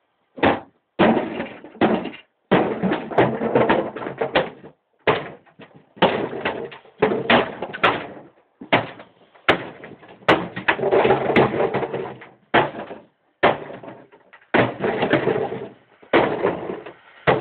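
Hammer smashing cardboard boxes: a long run of heavy blows in quick clusters with short gaps, some strikes running together.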